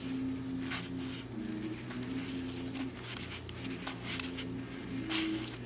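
1990 Donruss baseball cards being thumbed through and slid from hand to hand: three short swishes of card stock, under a second in, around four seconds in and around five seconds in, over a steady low hum.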